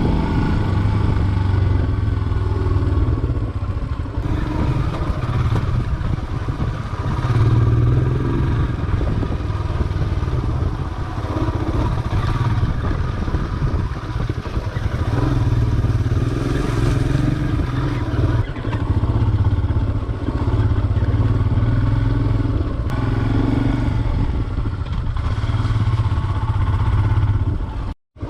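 Motorcycle engine, likely a Royal Enfield Himalayan, running under load on a rough muddy trail. The throttle rises and falls every second or two, and there is some clatter from the bike over the ground. The sound drops out briefly near the end.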